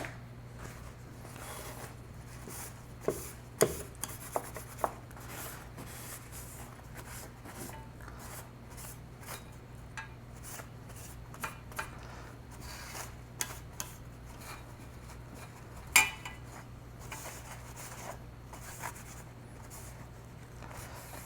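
A cloth wiping and rubbing small metal and plastic parts of a disco light's motors and shutter blades, with scattered light clicks and knocks as the parts are handled; the loudest knock comes about 16 seconds in. A steady low hum runs underneath.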